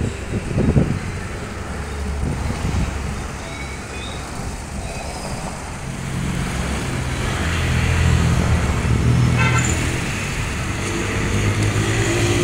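Road traffic: motor vehicle engines running nearby, getting louder in the second half.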